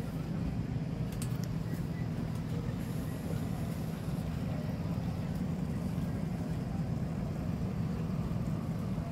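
Boat engine running steadily at idle, a low even rumble.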